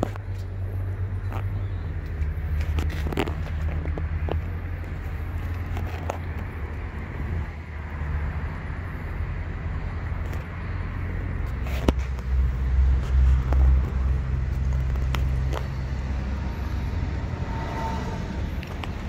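Toyota Highlander's engine idling, a steady low rumble heard from around the rear of the SUV, swelling briefly about two thirds of the way through, with a few sharp clicks over it.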